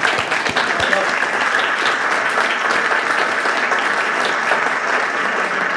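A small audience and the players clapping: steady applause, with separate hand claps standing out at the start.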